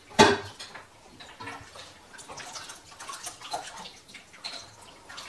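A stainless steel stock pot set down on the counter with one sharp clank and a short ring, followed by scattered light clicks and soft wet sounds of tomato pulp in a hand-cranked food mill.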